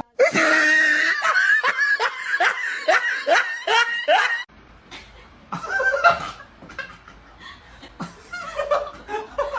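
A person laughing hard in a quick string of falling 'ha-ha' bursts that cuts off abruptly about four and a half seconds in, followed by quieter scattered laughter.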